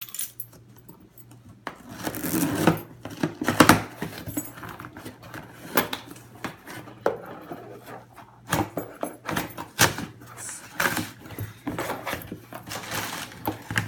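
Package being opened and handled: rustling with many scattered clicks and knocks, a few of them sharp and loud.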